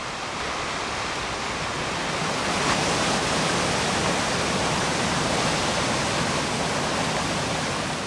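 High Force waterfall on the River Tees: a steady rush of heavy water plunging over the rock face into the plunge pool. It grows louder over the first few seconds, then holds steady.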